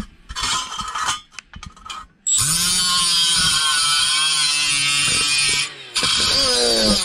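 Clatter of metal parts being handled, then a cordless drill with a sanding disc spins up about two seconds in and grinds against steel in a loud, steady whine. It stops briefly and runs again until near the end. It is grinding down protruding threads on a tail-light bracket so the parts will sit flat.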